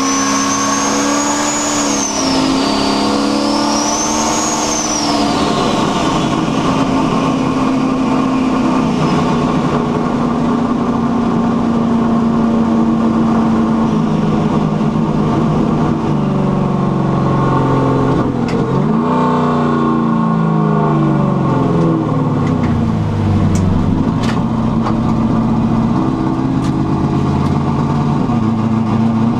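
Turbocharged car engine with a rear-mounted turbo pulling under way, a high turbo whistle rising and falling over the first few seconds. The engine then runs steadily, its pitch dropping and climbing again about midway, with a few sharp ticks near the end.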